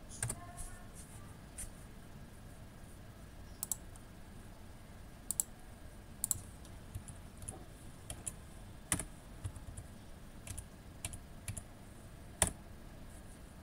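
Typing on a Lenovo G40-70 laptop keyboard: faint, irregular key clicks as terminal commands are entered, with a louder keystroke near the end.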